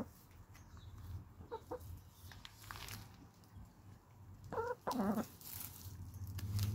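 Hens clucking while they forage: a couple of faint short clucks, then two louder clucks close together about four and a half seconds in.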